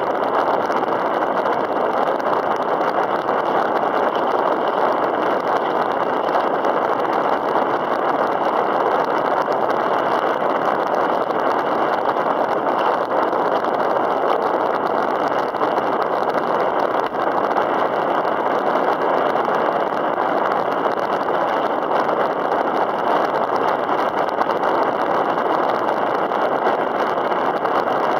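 Steady, unbroken rushing noise of wind and choppy sea water around a kayak on open water.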